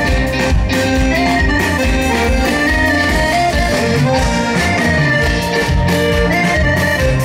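Live band playing an instrumental passage of an upbeat dance song, with a steady drum and bass beat under a held-note lead melody and no singing.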